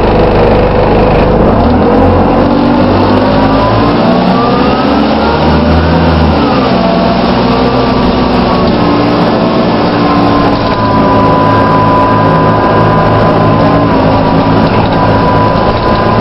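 Dennis Dart bus with a Plaxton Pointer body, running and pulling away. Its engine and drivetrain pitch rises for a few seconds, then drops sharply about six seconds in, and settles into a steady high whirring whine that steps down slightly near the end.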